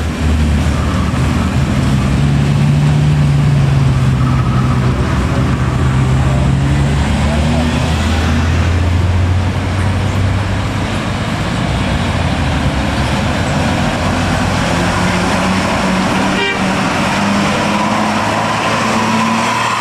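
Heavy diesel vehicle engines running close by in slow, congested traffic, one pulling loud for several seconds, with horn toots and voices in the background.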